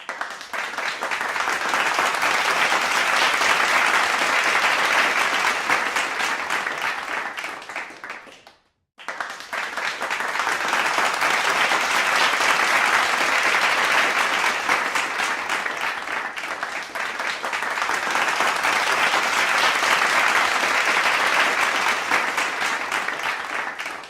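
Crowd applause, a dense steady clapping that swells and fades, cut by a brief silence about nine seconds in and then starting again.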